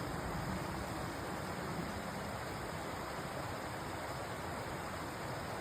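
Small forest stream running over tree roots: a steady rush of flowing water with no breaks.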